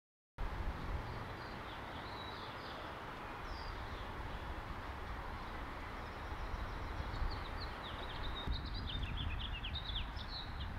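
Outdoor ambience: small birds chirping over a steady low background rumble, starting suddenly after a moment of silence, with a flurry of quick, falling chirps in the last few seconds.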